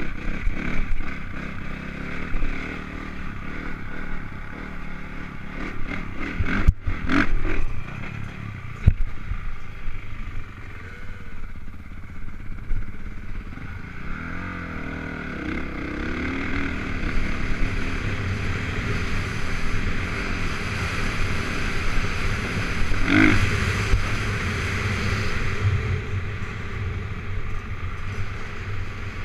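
Honda CRF450 four-stroke single-cylinder dirt bike engine running under way, heard from a helmet-mounted camera with wind noise over it. Its pitch rises and falls as the throttle is worked, and there are a couple of sharp knocks about seven and nine seconds in.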